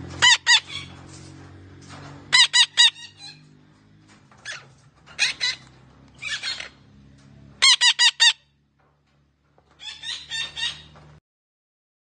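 Green parrot giving loud, harsh squawking calls in about six quick bursts of two to four calls each. The sound cuts off shortly before the end.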